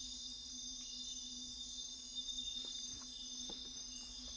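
Nocturnal rainforest insect chorus: a steady, high-pitched, continuous trilling of many insects, with a few faint clicks in the middle.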